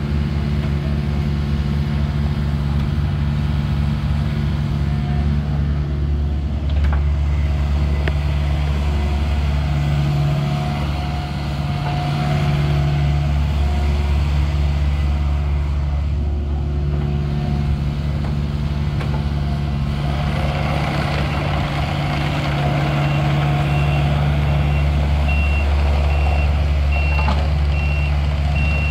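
2017 Takeuchi TB240 mini excavator's diesel engine running under hydraulic load as the machine swings and works its arm, the engine note shifting as the load changes. In the last third it is travelling on its tracks, and a high travel alarm beeps repeatedly at an even pace near the end.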